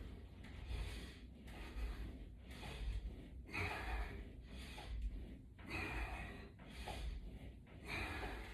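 A person breathing hard and steadily through the nose and mouth, about one breath a second, while straining through squats against resistance bands.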